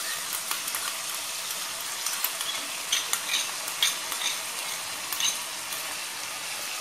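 Garlic, capsicum and spring onion sizzling in hot oil in a pan as sauces are mixed in, a spoon stirring and scraping against the pan with a few sharp clicks around the middle and again a little later.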